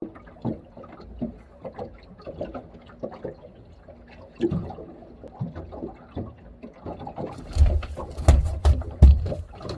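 Small waves lapping and slapping against an aluminum boat hull, an irregular run of small splashes and knocks, with a few heavier thumps about three quarters of the way through.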